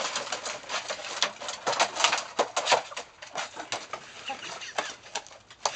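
Hens pecking and scratching in wood-shaving litter as they go after winged hoppers: a quick, irregular run of sharp clicks and rustles, with a couple of soft clucks a little past the middle.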